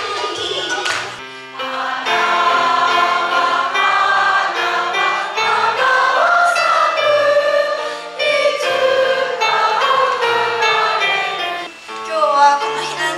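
Dance music for the first second or so, then, after a brief drop, a group of elementary-school girls singing a song together.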